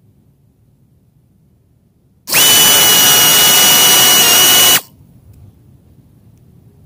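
A small high-speed motor runs loudly for about two and a half seconds, a steady high whine over a harsh rushing noise, starting and stopping abruptly.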